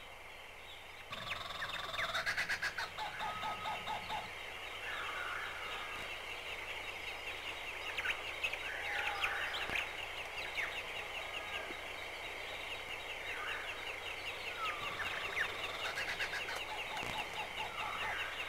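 Tropical rainforest ambience: several birds calling, with swooping whistled notes and short runs of quick pulsed notes, over a steady high-pitched chirring. It starts about a second in.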